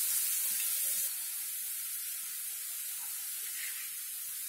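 Hot refined oil sizzling with a steady hiss as drops of besan (gram-flour) batter fry into boondi in a kadai. The hiss gets a little quieter about a second in.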